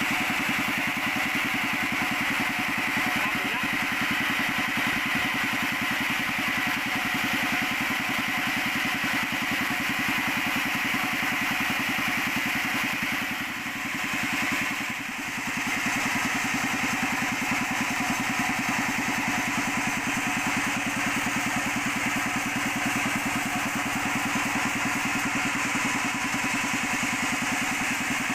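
Sawmill machinery running steadily with a pulsing, engine-like drone. The sound dips briefly twice about halfway through.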